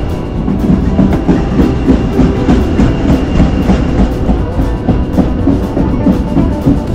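Background music with a steady percussive beat, over the low rumble of the moving passenger train.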